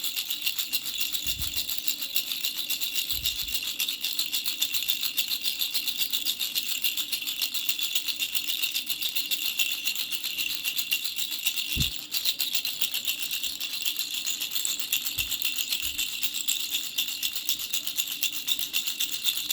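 Three-flower baby rattle shaken continuously in a fast, even rattle, with a few soft knocks and a brief dip about twelve seconds in.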